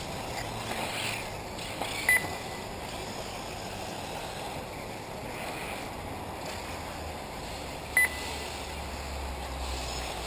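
Two short, high electronic beeps about six seconds apart: the race lap-timing system registering RC buggies crossing the line. Under them runs a steady outdoor wash of wind and track noise from 1/8-scale electric off-road buggies.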